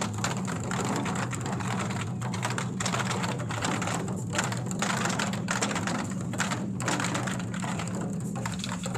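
Twenty-Four Festive Drums ensemble: many large Chinese barrel drums struck together with sticks in a fast, dense rhythm of rapid beats.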